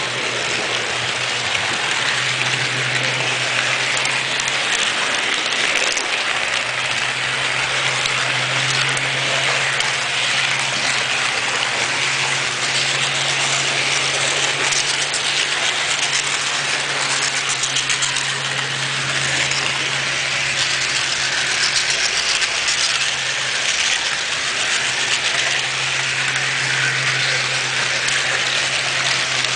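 HO-scale model train running along its track, heard from on board: a steady rolling hiss and rattle of wheels on rail over a low motor hum that fades in and out.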